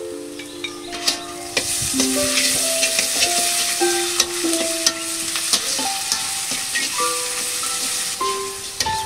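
Food sizzling as it fries in hot oil in a pan, with the clicks and scrapes of stirring. The sizzle swells about a second and a half in. A melody of single held notes plays over it as background music.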